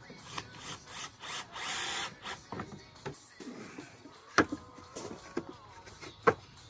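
A power drill driving a screw, running briefly, among clattering handling noises, with two sharp knocks in the second half.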